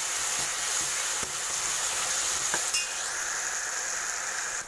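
Onion, tomato and green chilli sizzling in hot oil in a stainless steel pan while a steel ladle stirs them, with a few clinks of the ladle against the pan.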